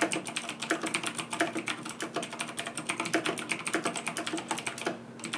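Fast typing on a Razer BlackWidow Ultimate Chroma mechanical gaming keyboard: a dense, quick run of key clicks that stops about five seconds in.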